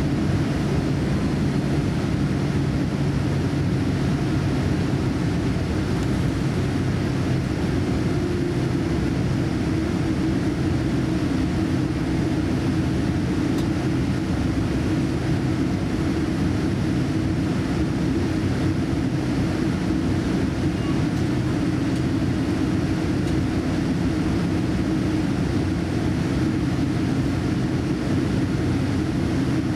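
Steady cabin noise inside a Boeing 787-10 airliner on the ground before takeoff: the jet engines at idle and the cabin air system make a low, even hum and rumble. A slightly higher hum comes up about eight seconds in.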